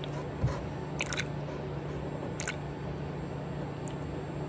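Coolant being poured from a plastic bottle through a funnel into a snowmobile's coolant reservoir, with a few short glugs and plastic clicks over a steady low hum.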